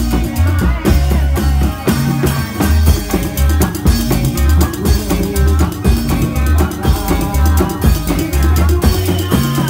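Indramayu reog music: driving drums with a deep, repeating bass beat under a pitched melody line.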